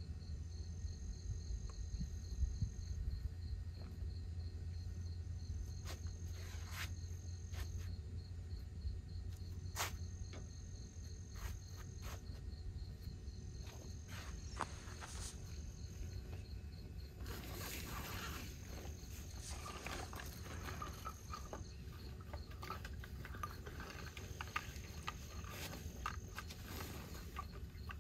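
Insects trilling: one steady, fast-pulsed high chirp, with a second, slightly higher trill that starts and stops every few seconds. Under it is a low rumble, and scattered clicks and rustles of someone handling camp gear grow busier in the second half.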